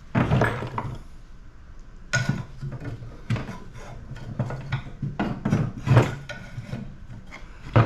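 Irregular metal clanks and knocks as hand tools work on an air-conditioning unit being dismantled for scrap. The loudest knock comes about six seconds in.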